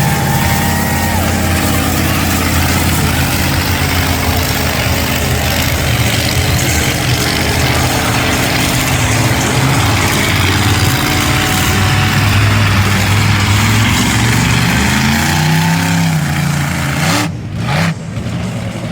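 Monster truck engine running loud and steady, its pitch swinging up and down with the revs in the last few seconds, then cutting out briefly just before the end.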